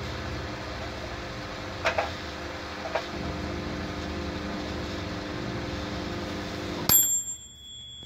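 Opened Gorenje microwave oven running with its high-voltage transformer powered but unloaded (high-voltage diode disconnected): a steady hum of the transformer and cooling fan. About seven seconds in it shuts off with a click and a long beep. The transformer heats even without load, its windings shorted after the varnish overheated.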